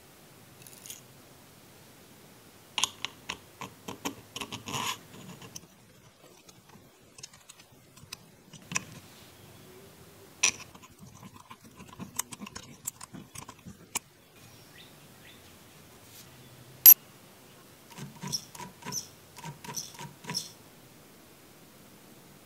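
Small metal parts clicking and tapping as a spring and screw are fitted into the top of a miniature engine's carburetor with tweezers and a small driver. The sound comes in a few short clusters of light clicks, with one sharper, louder click late on.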